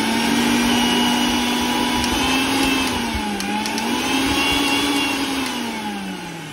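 Usha Smash mixer grinder's motor running with no jar fitted: a steady whine that dips briefly in pitch midway, picks up again, then winds down near the end. It keeps running instead of cutting out after start-up, a sign that the replaced regulator switch has cured the fault.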